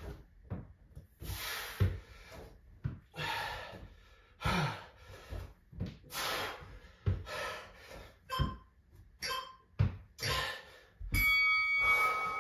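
Heavy breathing, a loud exhale about every second and a half, with dull thuds of hands and feet on a rubber exercise mat during a bodyweight bear-pose exercise. Near the end a steady electronic tone from the interval timer sounds for about a second, marking the switch to rest.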